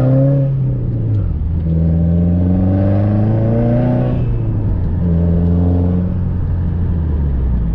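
Turbocharged Subaru WRX flat-four engine with a Tomei exhaust, accelerating hard: the revs climb and fall three times, dropping about a second, four seconds and six seconds in, and run lower near the end.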